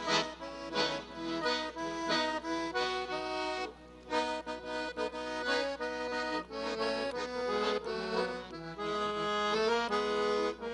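Accordion playing an instrumental passage of held chords and melody notes, with a brief drop in level about four seconds in.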